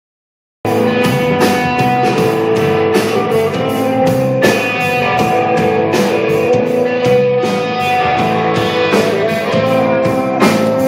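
Live rock band playing an instrumental passage: electric guitar, bass guitar and drums, with regular drum and cymbal hits. The sound cuts in about half a second in.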